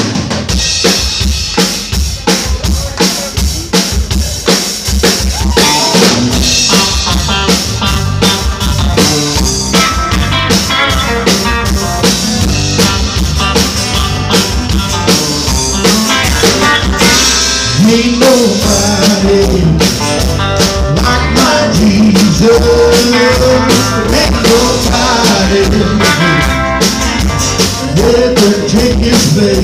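Live country band playing a song with a steady drum-kit beat, electric and acoustic guitars and bass, kicking in right at the start. A sung or played melody line comes in about halfway through.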